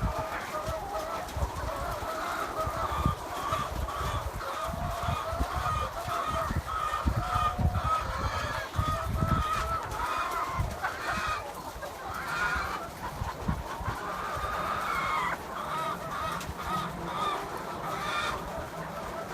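A large flock of laying hens clucking together, many overlapping calls at once, with irregular low thumps underneath.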